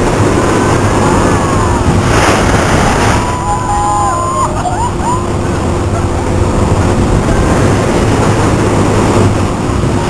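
Rushing air buffeting the microphone of a rider on a Mondial Turbine thrill ride as it swings through the air, a loud steady rumble, with riders' voices rising and falling in pitch over it in the first half.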